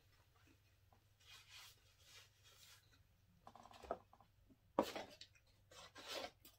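Cardboard takeout boxes handled on a table: soft scratchy rustling of paper and cardboard, with louder sharp rustles about five and six seconds in as a box flap is moved.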